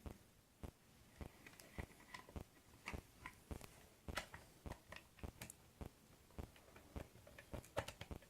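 Quick, irregular small clicks and taps, two or three a second, from the parts of a Minelab Explorer SE metal detector's control box being handled and fitted back together.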